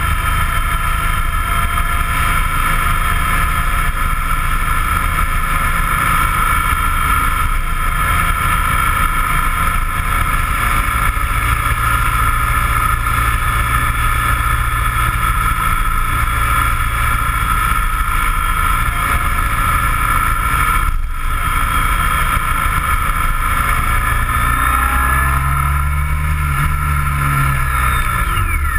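A vehicle's engine running at steady cruising speed with constant road and wind noise, picked up by a camera mounted on the vehicle. Near the end the engine note bends up and down as the vehicle slows.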